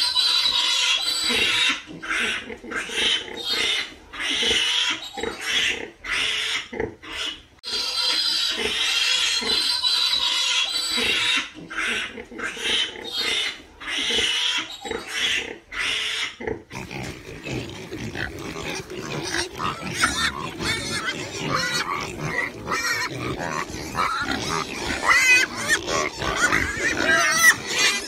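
Piglets squealing in high-pitched bursts as they nurse at a sow. About two-thirds of the way through this gives way to a herd of pigs grunting over one another, with sharper squeals near the end.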